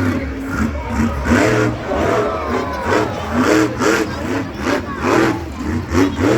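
Monster truck engine revving hard in quick repeated throttle blips, each rising and falling in pitch, about two a second.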